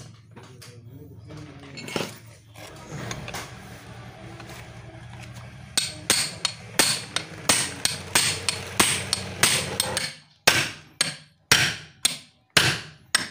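Hammer blows on a cold chisel set into the steel upper strut mount (shock support) of a Toyota Agya, cutting through its spot welds to free the cap. A rapid run of sharp metallic strikes, about three a second, starts around six seconds in, over a steady low hum that stops about ten seconds in.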